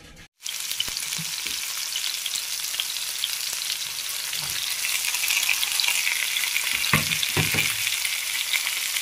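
Sliced onion and tomato sizzling in hot oil in a frying pan: a steady, crackling hiss. A couple of soft knocks come about seven seconds in.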